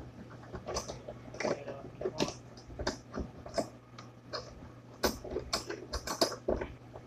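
Irregular clicks, knocks and rattles from a black metal stand being handled and adjusted, several a second and loudest a little after the middle, over a steady low hum.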